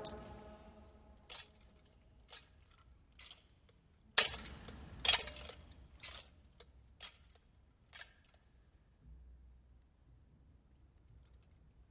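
A metal thurible swung on its chains to incense the Gospel book, its chains and lid clinking sharply about once a second, eight times, with a ringing echo. The tail of a sung response dies away at the start.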